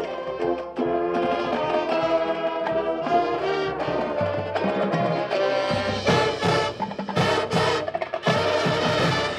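High school marching band playing: brass section sustaining chords over percussion, with a run of heavy drum and cymbal hits in the second half.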